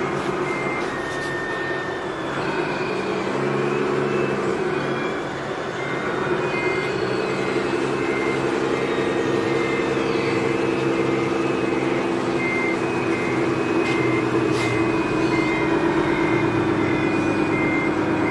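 Diesel engine of a heavy earthmoving machine running, its pitch shifting a few seconds in and then holding. A reversing alarm beeps at an even pace, a little over once a second.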